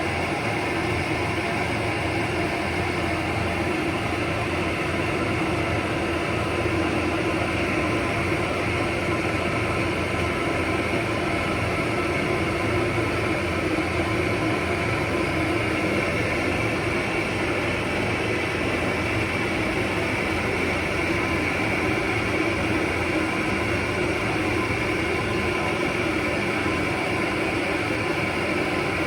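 Hair dryer running steadily while drying a golden retriever's coat, a constant motor-and-air noise.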